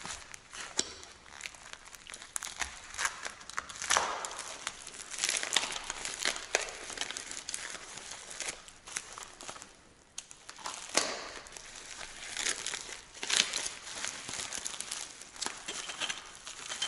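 Plastic bubble wrap and packaging being handled and unwrapped by hand: irregular crinkling and crackling rustles.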